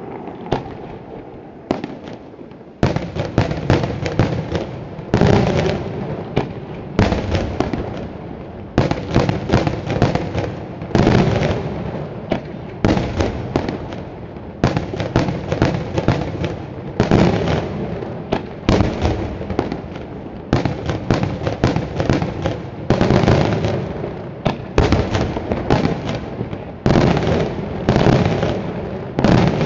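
Daytime fireworks going off: a few separate bangs at first, then from about three seconds in a rapid, near-continuous barrage of bangs and crackling reports.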